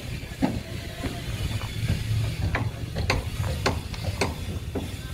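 A run of sharp, irregular knocks and taps from work in a wooden-boat repair yard, the loudest about every half second past the middle, over a steady low rumble.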